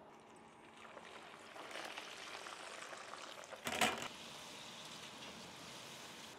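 Hot deep-frying oil at about 280°F sizzling and crackling as a batch of frozen french fries is lifted out with a wire spider strainer. A short, sharp clatter about four seconds in is the loudest sound, and a steadier, quieter sizzle follows.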